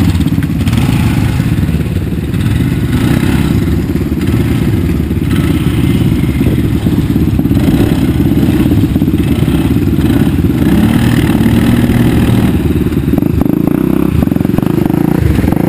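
ATV engines running: a loud, steady, low engine rumble with quads moving through muddy water.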